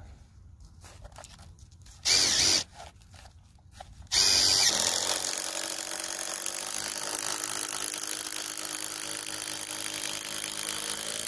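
Cordless drill driving a long structural wood screw into a pressure-treated 4x4 timber beam. A short burst comes about two seconds in, then a steady run of about seven seconds from about four seconds in.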